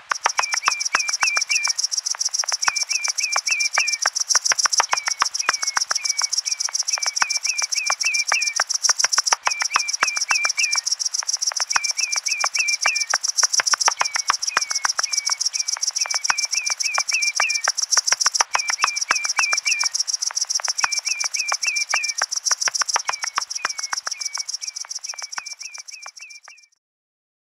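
Meadow soundscape: a steady high-pitched insect chorus, with a bird's short chirps repeated in quick runs of three to five and many sharp ticks. It fades out about a second before the end.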